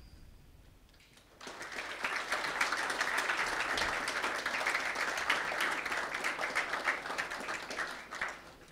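Audience applauding, beginning about a second and a half in and dying away near the end.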